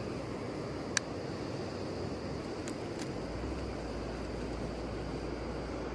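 Steady rushing of river water, with a single sharp click about a second in and a low rumble joining at about three seconds.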